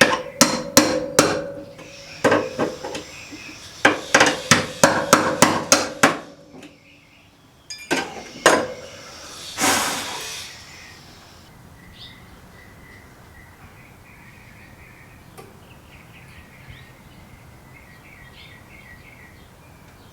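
A hammer striking steel panel metal in a quick run of ringing blows, about three or four a second, for some six seconds. A couple more blows follow after a pause, then a short scraping rush. After that it is quiet, with faint bird chirps.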